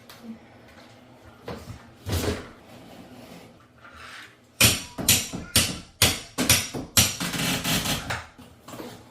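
Hammer blows in shower demolition. There is a single knock about two seconds in, then a quick run of about eight sharp strikes, roughly two a second, over the last half.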